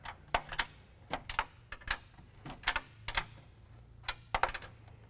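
A 7 mm wrench tightening small nuts onto the grille's studs and brackets: sharp metallic clicks in short runs of two or three, with short pauses between strokes.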